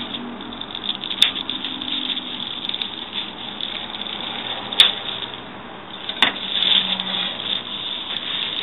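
Packaging and a laptop being handled: a steady rustling with three sharp clicks or knocks, about a second in, near the middle and a little later.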